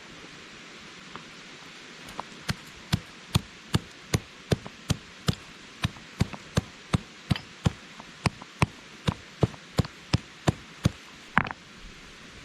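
A run of about two dozen sharp, evenly spaced knocks, roughly two and a half a second, like something hard being struck repeatedly, over the steady rush of a mountain stream.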